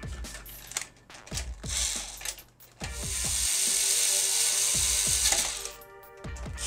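A few clicks of handling, then an electric screwdriver runs steadily for about three seconds driving a screw into a PS3 Slim's metal shield, stops briefly and starts again right at the end.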